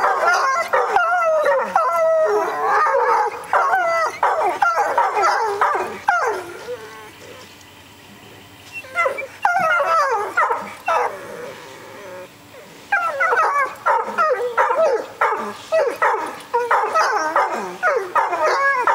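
Two wolfhounds howling together, set off by a siren, their voices sliding up and down with yips mixed in. They mostly drop off for a few seconds midway, with one brief howl in the lull, then take it up again.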